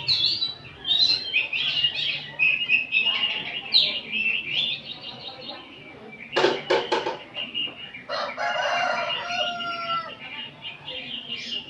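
Several oriental magpie-robins singing at once, a continuous tangle of high whistled and chattering notes. About six seconds in come a few loud, harsh rasping notes. A held crow like a rooster's follows at about eight seconds and lasts over a second.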